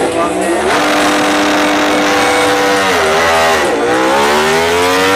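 Ducati MotoGP race bike's V4 engine held at steady revs, dipping briefly after about three seconds, then rising in pitch as the bike pulls away.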